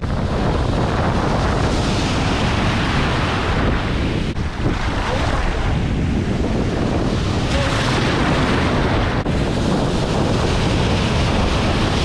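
Pacific Ocean surf breaking and washing in foam right at the microphone: a continuous loud rush of churning water.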